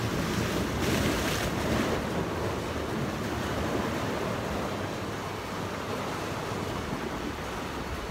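Sea surf washing against shore rocks, with wind buffeting the microphone; a louder surge of wave wash comes about a second in.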